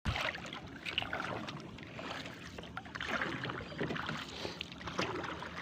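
Water sloshing and lapping around a small fishing boat, with scattered knocks and splashes.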